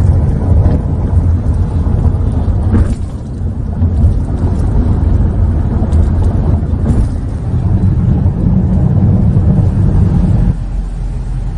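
Car driving, with a steady low road and engine rumble inside the cabin that eases about ten seconds in.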